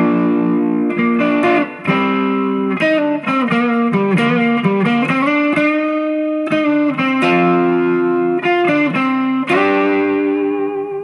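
Gibson Les Paul electric guitar played through a Fender Mustang II amp on a light crunch setting: chords changing every second or so. The last chord is held and left to ring near the end.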